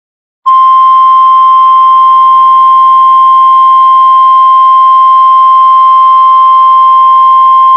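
NOAA Weather Radio warning alarm tone: one loud, steady, unbroken beep held for about seven seconds over faint radio hiss, starting half a second in and cutting off suddenly. It is the alert that comes before a National Weather Service tornado warning broadcast.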